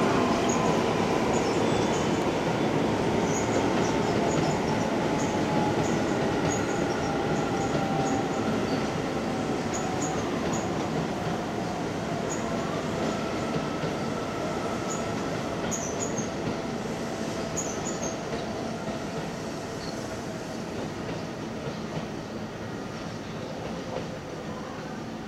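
Keio 7000-series electric train running on the rails with a rumble and faint whining tones that slide slowly lower in pitch, the whole sound slowly fading.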